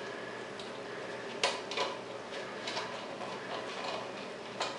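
Stiff wire coat hanger scraping and clicking against the porcelain as it is pushed and worked back and forth in a clogged rim hole under a toilet bowl's rim. A few light, separate clicks, the sharpest about a second and a half in and another near the end.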